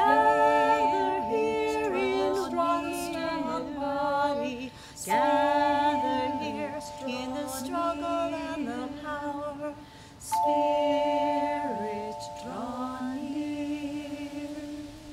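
Three women singing a cappella in harmony, holding three long chords that begin about five seconds apart.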